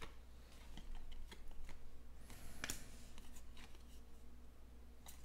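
Baseball trading cards being flipped through by hand: an irregular run of soft clicks and papery slides as each card is pulled from the front of the stack and tucked behind.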